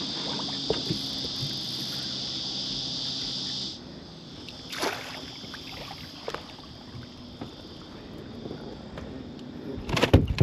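A steady, high insect chorus that cuts off suddenly about four seconds in. After it come scattered knocks and clicks, and near the end a run of loud thumps and knocks.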